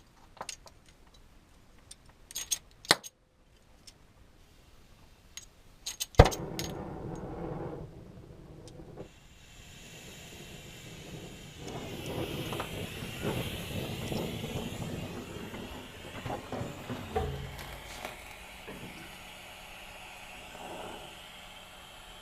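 Oxy-fuel cutting torch: a few sharp clicks and clinks, then a loud pop about six seconds in, followed by the steady hissing rush of the flame and oxygen jet cutting steel.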